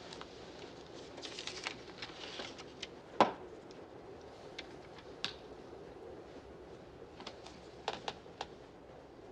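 Clay poker chips clicking together as they are handled and stacked on a felt table. There is a brief run of clattering early on, one sharp clack a little after three seconds in, and a few more clicks near the end.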